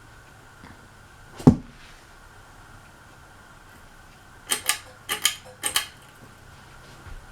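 A single sharp knock, then a quick run of about six clicks in pairs, over a faint steady hum.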